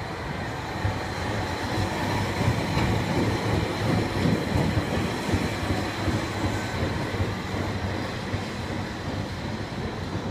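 Fukui Railway 800-series tram pulling away along street-running track: motor and wheel-on-rail rumble grows louder as it passes close, then eases as it moves off down the street.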